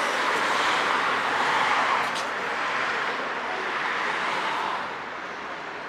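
Road traffic: a vehicle passing on a city street, its noise swelling and then fading away about five seconds in.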